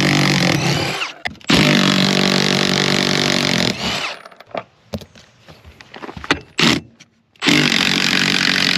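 Milwaukee M12 cordless impact wrench running in bursts as it backs out seat-mounting bolts. A long run breaks off briefly about a second in and goes on until near the middle. Then come a few seconds of scattered clicks and knocks, and the tool starts again a little over a second before the end.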